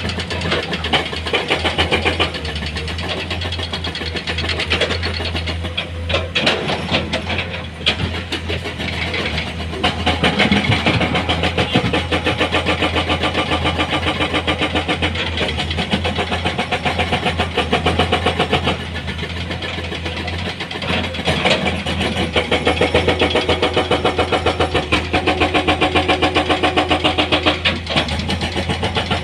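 Heavy-equipment diesel engine running, with an even pulsing beat of about five a second that is strongest near the end.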